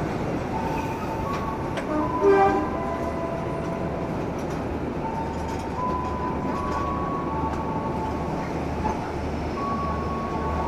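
Steady rumble of two diesel-hauled passenger trains standing at a platform, running while stopped, with faint steady whines coming and going. A short, pitched, horn-like toot sounds about two seconds in.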